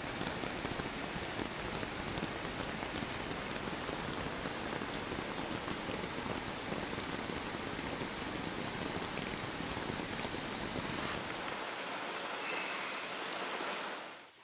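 Heavy rain falling steadily, an even wash of noise whose low end thins out shortly before it fades away near the end.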